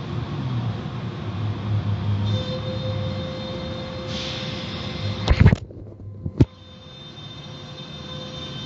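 Automatic car wash tunnel running behind window glass: spinning cloth brushes and water spray as a steady rushing noise with a low hum and a faint steady whine. About five seconds in come sharp knocks, the noise drops away briefly, and one more knock follows about a second later.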